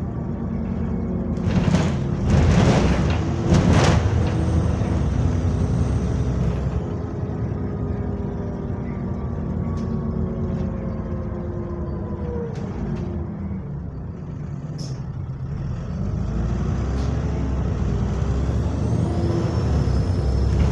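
Diesel bus engine pulling the bus along, with a thin high whine from a leaking turbocharger that rises as the engine builds power a few seconds in and again near the end. About two to four seconds in, a few loud hisses of air from the air brakes.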